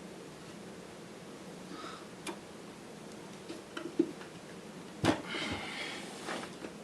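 Quiet handling with a few small clicks, then about five seconds in a knock followed by a second or so of scraping and rattling as the radio's chassis breaks loose and comes out of its cabinet.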